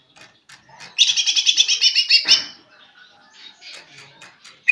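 Cucak ijo (green leafbird) singing a fast run of high, repeated notes for about a second and a half, starting about a second in, with faint scattered chirps around it. It is a caged bird practising its song.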